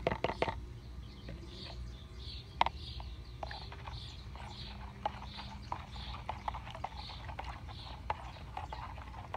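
Lye granules poured from a plastic cup into a plastic measuring jug of aloe, then a plastic spoon stirring the lye solution, scraping and tapping against the jug's sides about twice a second, over a low steady rumble.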